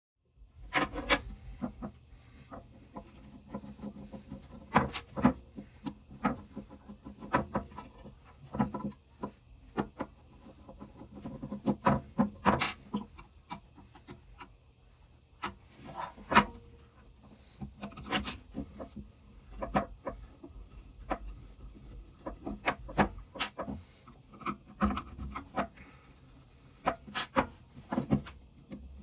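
Hand work on an old butcher's saw: irregular scraping and rubbing strokes broken by sharp knocks and clicks.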